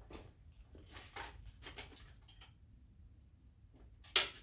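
Small hand tools and a pocket knife being handled on a work surface: faint rustling and light clicks, then one sharp clack about four seconds in, as a tool or the knife is set down or snapped shut.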